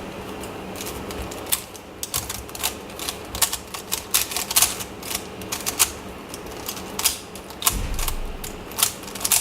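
Plastic puzzle-cube layers being turned by hand in quick runs, giving irregular sharp clicks and clacks. These are the final turns of a solve, executing a Y-perm algorithm.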